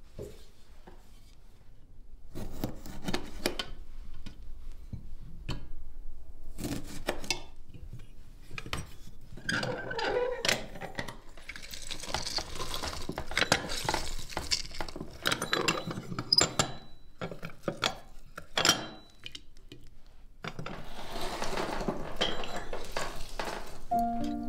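Metal clinks and knocks from an old manual hand-lever lemon juicer as lemons are loaded and its lever is pressed down, with stretches of squeezing and scraping between the knocks.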